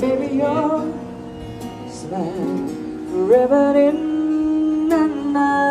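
Live acoustic music: a sung melody with held, gliding notes over acoustic guitar.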